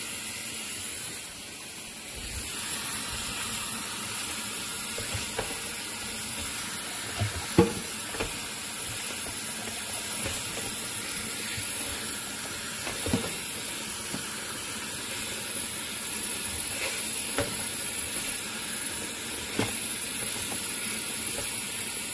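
Tap water running steadily into a stainless steel sink as water spinach is rinsed by hand in a plastic colander, with a few light knocks along the way.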